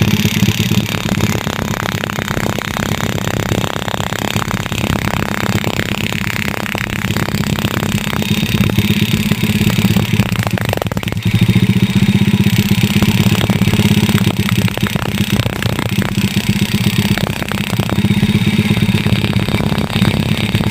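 Yamaha Crypton motorcycle engine turned over with its spark plug out and grounded on the cylinder, sparking for a spark test after the ignition upgrade. The mechanical sound runs steadily with a fast even pulse, easing and picking up again a few times.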